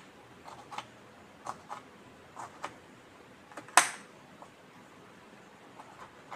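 Miniature knife slicing an onion on a small board: a string of light, irregular clicks as the blade meets the board, with one sharper knock a little under four seconds in.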